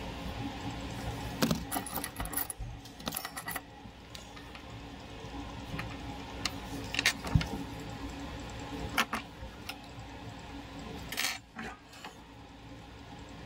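Small metal clicks, taps and brief scraping rattles of electronic components being handled with small tools: a capacitor's leads being fitted and bent against a relay's pins. The clicks come irregularly, in a cluster in the first few seconds and singly later, over a steady low hum.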